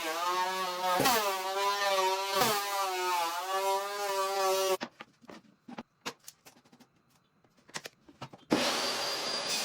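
An electric power tool working wood, its whine dipping in pitch and recovering again and again as it bites, cut off abruptly just under five seconds in. A few light clicks and knocks follow, then a steady hissing machine noise starts near the end.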